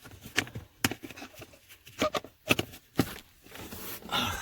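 Irregular sharp clicks and knocks from handling plastic trim and the seat in a car interior, about half a dozen, with a short rustle near the end.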